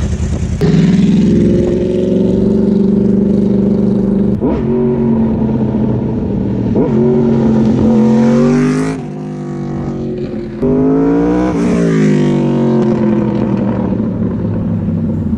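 Yamaha R1 sport bike's inline-four engine revving hard through several gear changes, its pitch climbing and dropping repeatedly, with a rise then fall near the end.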